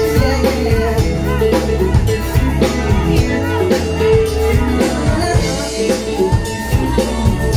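Live Thai pop song played loud through a PA, with a steady drum beat under the backing band and a man singing into a handheld microphone.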